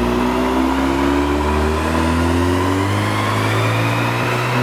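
Volkswagen Golf R's turbocharged 2.0-litre four-cylinder pulling through a Remus valved cat-back exhaust with the valves closed. The revs climb slowly and steadily under load on a rolling road.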